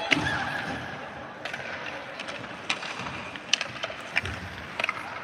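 Ice hockey practice: skate blades scraping and carving the ice, with several sharp clacks of sticks striking pucks, and faint voices of young players.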